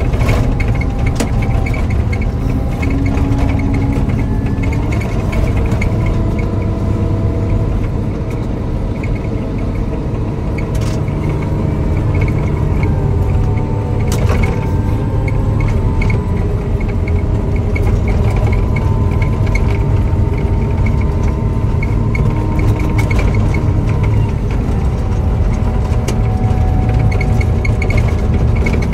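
Snow-removal motor grader's diesel engine running under load, heard from inside the cab. Its pitch shifts up and down several times, with a fast, regular ticking over it.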